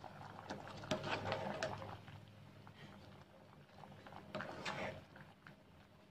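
Metal ladle stirring and scraping in a large aluminium pot of boiling liquid, with bubbling. There are two bursts of stirring clatter, about a second in and again about four and a half seconds in.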